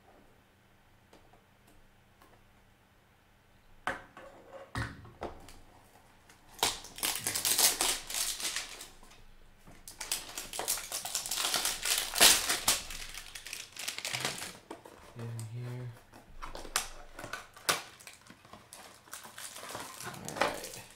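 Plastic shrink-wrap and cardboard of a trading-card hanger box being torn open and handled: a couple of sharp clicks about four seconds in, then dense crinkling and tearing through the middle, thinning to scattered rustles and clicks near the end.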